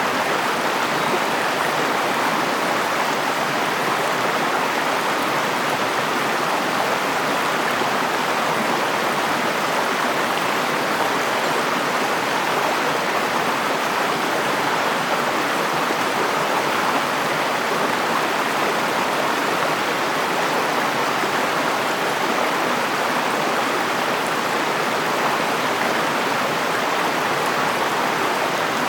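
River water flowing and rushing over rocks: a steady, even rush with no breaks.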